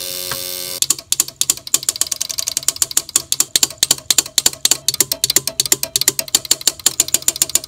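A 1930s telephone switchboard doll's eye indicator is switched on and off by an LFO through an electromagnetic switch, its shutter and armature clicking rapidly, many times a second. A brief steady buzz comes first, and the clicking starts under a second in.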